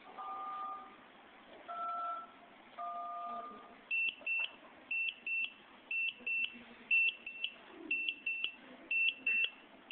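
Three DTMF keypad tones from a handheld amateur radio, sending the command that switches on the balloon avionics' recovery lights. From about four seconds in, a piezo buzzer on the board beeps in quick pairs, about one pair a second.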